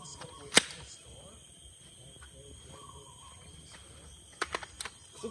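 A single loud rifle shot from an M4-type carbine: one sharp crack about half a second in. A few much fainter sharp clicks follow near the end.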